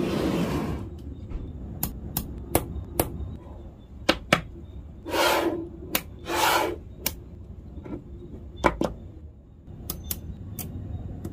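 Small neodymium magnetic balls clicking sharply together one after another at an irregular pace as they are snapped into place. Three short bursts of noise, each well under a second, come at the start and around the middle.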